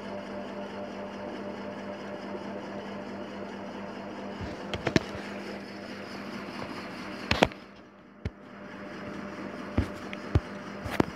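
Steady background hum with a few short, sharp clicks scattered through it, the loudest about seven seconds in; the hum drops away briefly just after.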